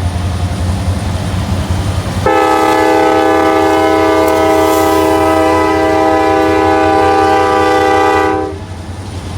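Diesel freight locomotive's air horn sounding one long blast, a chord of several steady tones held about six seconds, starting suddenly about two seconds in and cutting off near the end. A low steady rumble of the passing train runs underneath.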